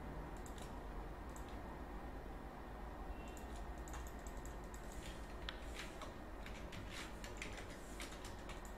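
Computer keyboard keystrokes: a few scattered taps, then a quick run of clicks from about three seconds in, over a low steady hum.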